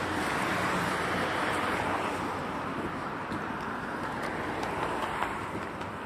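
Steady rushing hiss of road traffic, fading somewhat near the end.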